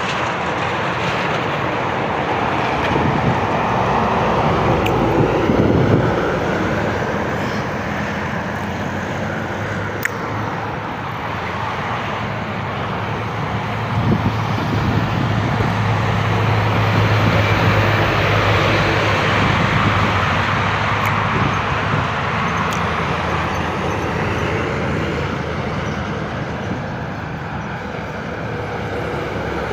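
Steady highway traffic noise from trucks and other vehicles passing on a multi-lane road. A deep engine drone swells about halfway through as a heavy truck goes by, then fades.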